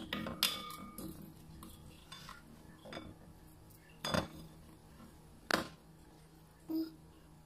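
A spoon clinking and scraping against a glass mixing bowl while stirring a wet egg and chopped malunggay mixture: a few scattered clinks, the loudest about four and five and a half seconds in.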